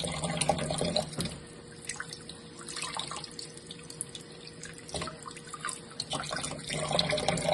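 Kitchen faucet running into a sink as raw chicken leg quarters are rinsed under it, with splashes and drips. The flow is heavier for about the first second and again near the end, lighter in between.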